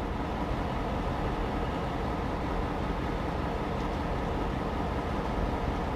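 Steady, low machine noise running without a break.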